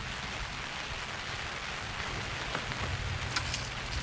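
Steady rain falling on a fishing umbrella, an even hiss, with a few light clicks near the end.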